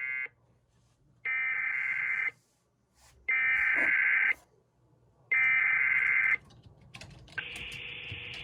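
Emergency Alert System SAME header: the tail of one burst, then three data bursts of buzzy, warbling digital tones, each about a second long and about a second apart. Steady radio hiss with a faint hum comes in about seven seconds in.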